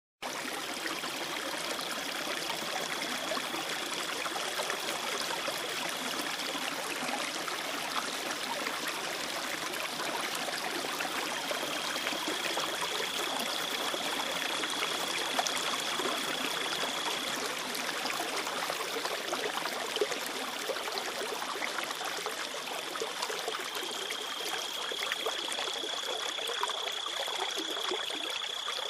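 Steady rush of running water, like a stream. A faint high steady tone rides above it in three stretches of several seconds each.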